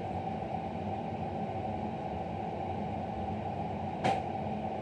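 Steady low hum and hiss of a small room, with one brief soft noise about four seconds in.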